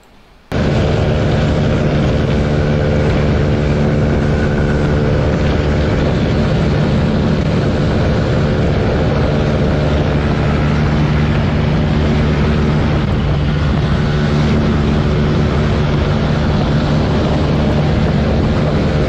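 Motorcycle engine running steadily at speed, with wind noise, recorded by a camera on the moving bike. It cuts in about half a second in and holds an even drone with no clear revving.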